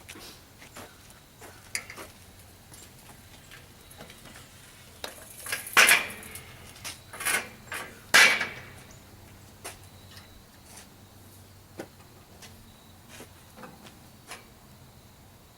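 Irregular clanks and knocks of metal parts and tools being handled, the loudest two about six and eight seconds in.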